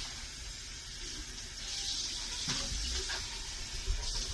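Kitchen tap running into a sink while a recyclable container is rinsed out under it, with a few light knocks as it is handled.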